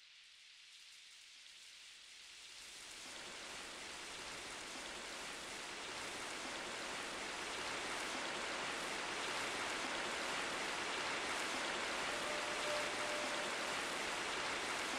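A steady rain-like hiss fading in from near silence and growing louder, in an ambient electronic recording. A faint held tone enters near the end.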